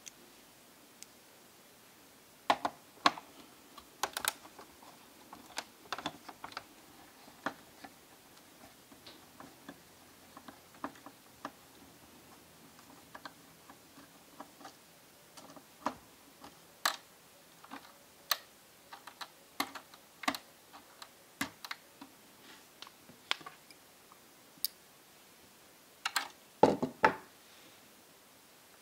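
Screwdriver working the LCD hinge screws of a laptop: irregular small clicks and taps of the metal tool on screws, hinge bracket and plastic case, with a cluster of louder taps near the end.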